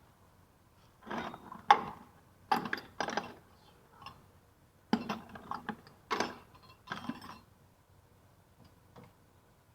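Hand tools and metal parts of a car's rear brake worked and handled during a caliper slide-pin repair. They make a series of irregular short clattering, ratchet-like bursts that stop about two seconds before the end.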